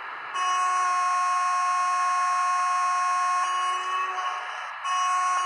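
Locomotive horn played by the HO scale WAP4 model's ESU LokSound sound decoder. One long steady blast shifts slightly in pitch about three seconds in and stops briefly, then the horn sounds again near the end.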